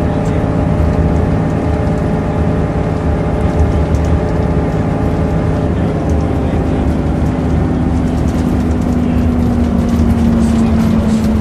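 Volvo Citybus double-decker on the move, heard from inside the upper deck: a steady diesel engine drone and rumble, with small rattles from the body and fittings. About two-thirds of the way in, a whine grows louder and slowly falls in pitch.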